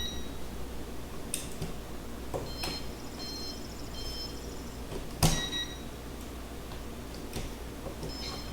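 Clicks and taps of an electrical tester being handled at a wall outlet, with a few short, faint, high electronic chirps, about three seconds in and again about five seconds in. A steady low hum runs underneath.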